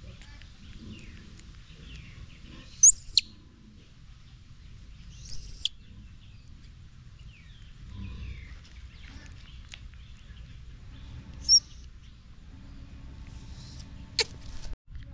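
Infant monkey giving two loud, shrill, high-pitched squealing calls about three and five and a half seconds in, then a short squeak near the middle, over a quiet steady outdoor background. A brief sharp click comes near the end.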